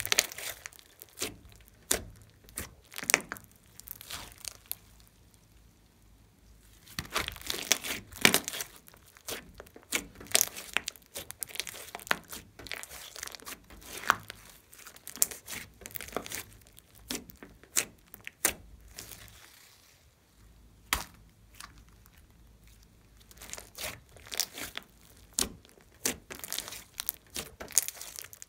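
Glossy slime with clay mixed in, kneaded, folded and stretched by hand: irregular sticky clicks, pops and crackles, in busy spells with quieter pauses between them.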